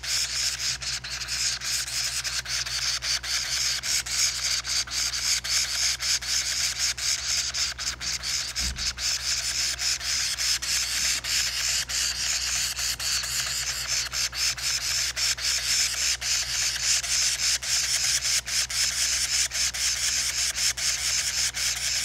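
Parrot nestlings begging: a continuous run of raspy, hissing calls, pulsing several times a second.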